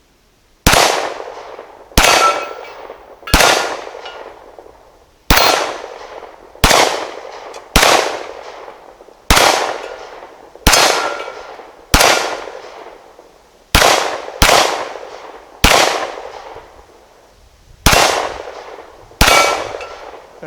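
Glock 17 Gen 4 9mm pistol fired fourteen times at an unhurried pace, roughly one shot every second or so, each shot trailing off in an echo.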